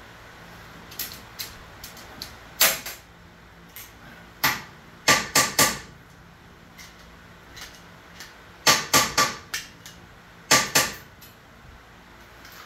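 Sharp metallic knocks in quick runs of two to five, the loudest with a short ring: hand-tool metalwork on the solar panel frames.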